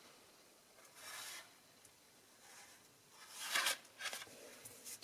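White cardstock folded for a pop-up card rustling and rubbing as hands flex its folds, with a short rustle about a second in and a louder one about three and a half seconds in.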